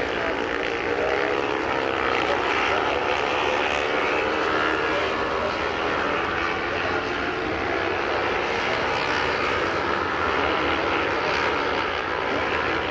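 Several classic racing motorcycles at speed, heard at a distance: the engines of the pack run together as a steady sound of overlapping, wavering tones at high revs.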